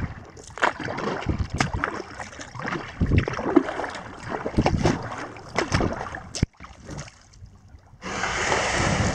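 Kayak paddle strokes splashing in shallow water, about one a second. Near the end the plastic hull slides up onto wet sand with a steady scraping hiss as the kayak beaches.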